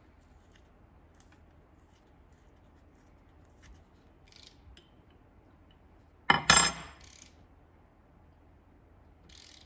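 Hand tools working the band adjuster of a 727 automatic transmission: faint clicks and scrapes, then one loud metal clank about two-thirds of the way through, a steel combination wrench set down on the workbench.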